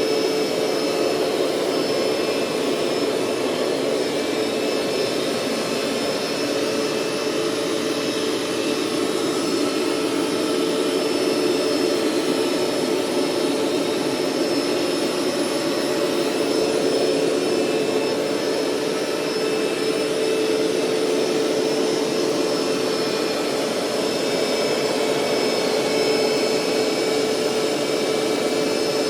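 Hoover SteamVac SpinScrub 50 carpet cleaner running steadily, its suction motor pulling water back up from the carpet with a constant whine and rushing air.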